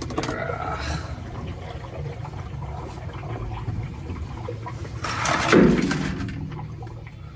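Water rushing and gurgling, with a steady low hum underneath and a louder surge about five seconds in.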